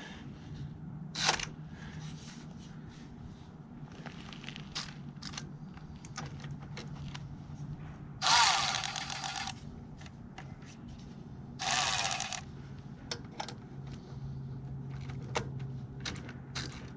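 Milwaukee M12 Fuel cordless 3/8-inch power ratchet run in two short bursts against a seized bolt that does not turn, with clicks of the tool and socket being handled in between. A steady low hum runs underneath.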